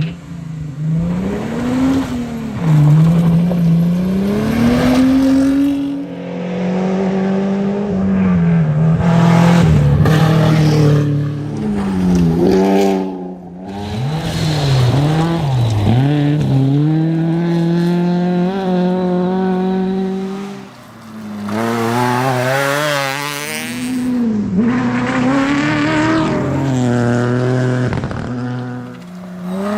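Rally car engine at full race pace, revving up and dropping back over and over as it shifts gears and lifts off the throttle, with a few short breaks in the sound.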